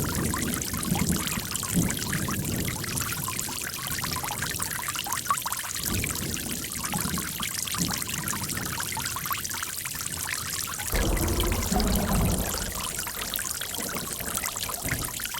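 Water running and splashing steadily, with deeper gurgling swells now and then, the heaviest about eleven seconds in.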